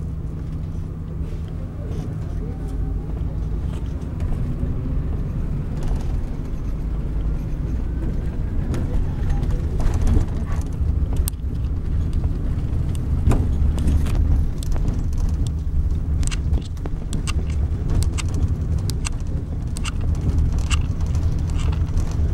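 Volvo B12R bus's rear-mounted diesel engine running under way as the bus drives, heard from inside the coach, a steady low drone that grows gradually louder. Sharp clicks and rattles come through repeatedly in the second half.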